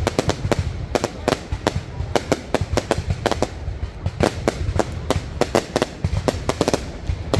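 Aerial fireworks display going off in a rapid, irregular string of sharp bangs and cracks, several a second, over a low rumble.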